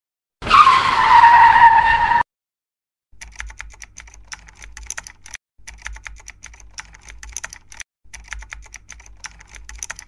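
A loud screech lasting about two seconds, its pitch dipping slightly at the start, then runs of rapid, irregular clicking over a low hum, each run cut off abruptly.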